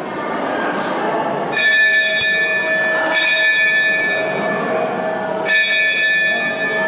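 Hanging temple bell struck three times, about two seconds apart, each stroke ringing on with a steady metallic tone.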